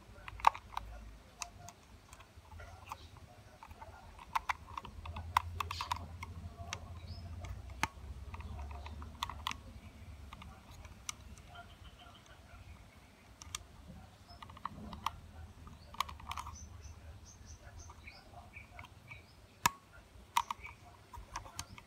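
Irregular sharp plastic clicks and taps from handling a plastic wall socket faceplate and thumbing its snap-in screw-cover caps into the screw holes, over a faint low rumble.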